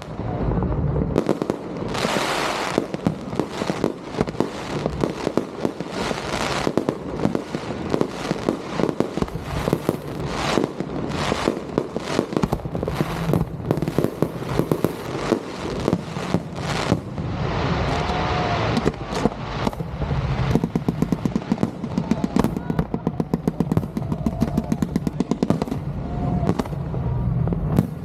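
Fireworks display: a dense, continuous barrage of bangs and crackling bursts, many shots a second, going off one over another.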